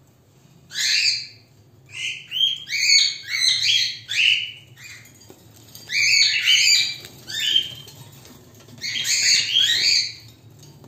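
Cockatiel calling and chattering: runs of short, quick notes that bend up and down in pitch, coming in four bursts with short pauses between.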